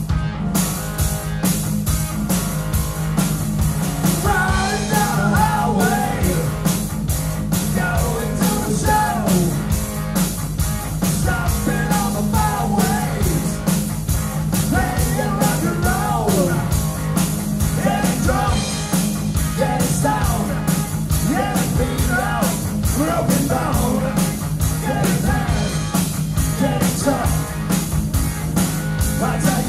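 Live rock band playing: electric guitar, bass guitar and drum kit with a steady beat, and a male lead singer coming in about four seconds in.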